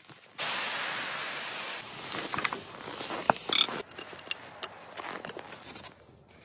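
Steam vented from an Afghan cauldron pressure cooker in a sudden loud hiss about half a second in, easing after a second and a half and dying away over the next two seconds. Sharp metallic clicks and knocks follow as the lid's clamp handle is worked and the lid is opened.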